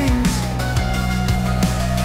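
Background rock music, an instrumental stretch with no singing.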